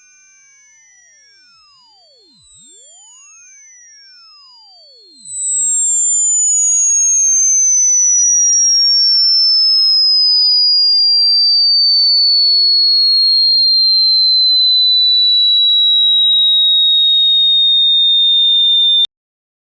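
Electronic sine tone gliding slowly downward from a very high, piercing pitch to a high whistling pitch, then cutting off abruptly shortly before the end.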